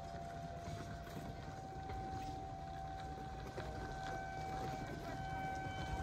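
Distant outdoor tornado warning sirens sounding the steady Alert signal: two held tones close in pitch that neither rise nor fall, over a low background rumble.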